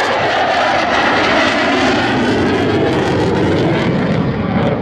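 Belgian Air Force F-16 fighter jet flying a low display pass, its loud jet engine noise steady in level while its pitch falls gradually as it passes.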